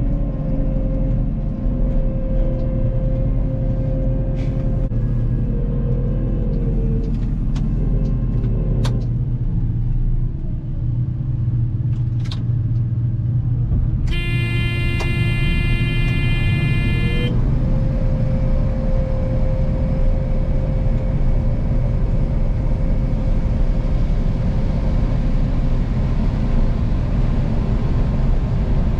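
A vehicle engine runs steadily throughout. Near the middle, a horn sounds for about three seconds.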